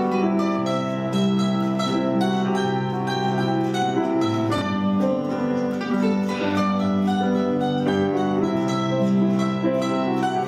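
Instrumental folk tune played live by a small acoustic group: grand piano with acoustic guitar and other plucked string instruments, at a steady even level.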